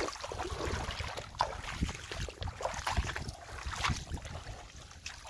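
Splashing and sloshing of a person wading into and paddling in a shallow, stony river, irregular throughout, with wind buffeting the microphone.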